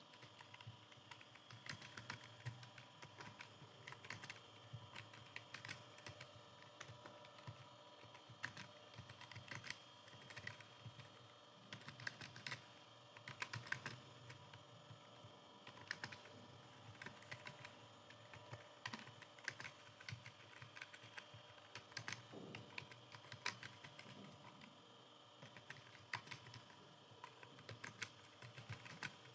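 Computer keyboard being typed on continuously: quick, irregular keystroke clicks in runs, with brief pauses between bursts.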